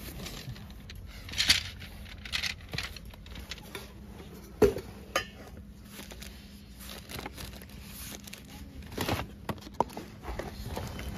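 Camping gear being handled: fabric and plastic rustling and crinkling, with scattered knocks and clinks of plastic dishes and kitchenware being moved about in a storage box.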